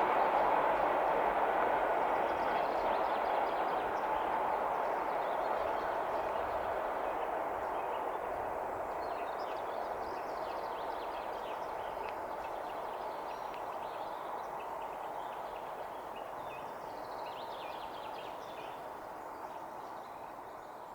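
A train going away down the line, its rolling noise fading steadily. Birds chirp over it in the second half.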